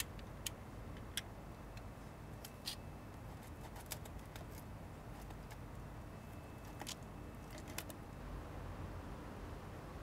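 Scattered light clicks and taps, a dozen or so at uneven intervals, over a low steady hum.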